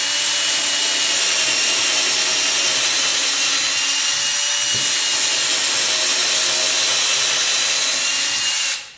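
Ridgid 18-volt cordless drill running steadily at speed, its bit boring a hole into a wooden board, with a faint motor whine over the cutting noise; it stops near the end.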